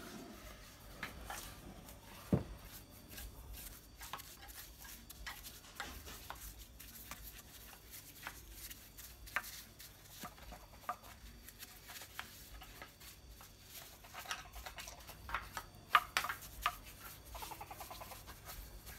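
Soft, scattered taps and brushing as a bristle paintbrush dabs polish into the carved detail of a wooden statue, with a few sharper clicks of the brush and hands against the wood.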